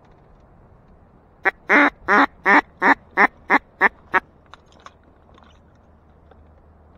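Mallard hen duck call blown close by: a greeting call of about nine loud quacks over about three seconds, the early notes long and the later ones shorter and quicker, to call passing ducks in to the decoys.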